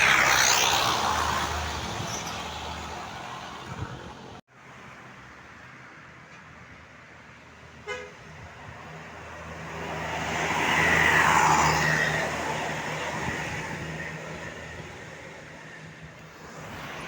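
Tour buses passing while sounding multi-tone 'telolet' horns over engine noise, the horn tones falling in pitch as each bus goes by. The sound cuts off suddenly about four seconds in, and a second horn swells and fades about ten to twelve seconds in.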